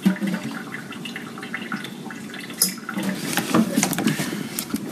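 Rinse water draining and splashing into a sink as a strainer of freshly washed rice is jiggled to shake the water off. Light taps and rattles grow denser in the second half.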